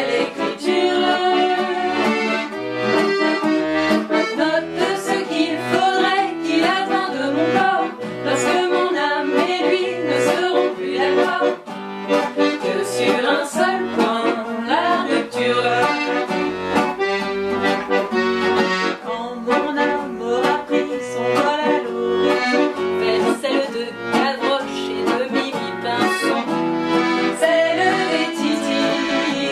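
Chromatic button accordion playing the melody, with a nylon-string classical guitar strumming chords and bass notes underneath: an accordion and guitar interlude in a French chanson.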